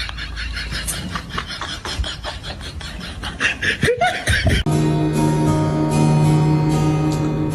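Rapid bursts of laughter, then a short voice sliding in pitch, before background music with sustained notes cuts in abruptly about two-thirds of the way through.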